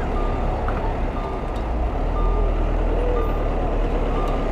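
Wind and road noise on a bicycle-mounted camera's microphone while riding, a steady low rumble, with a short electronic beep repeating about once a second.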